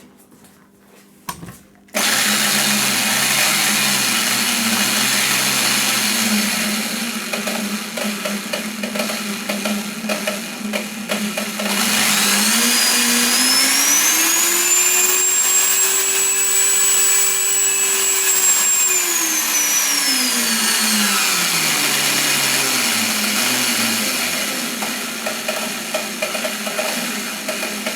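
Electric drill motor switched on about two seconds in and running steadily, then rising to a higher whine, held there, and slowing back down as its speed controller is turned up and down. It winds down near the end.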